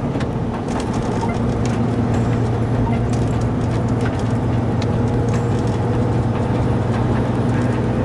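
Lorry engine and road noise heard from inside the cab while driving: a steady, even drone that holds unchanged.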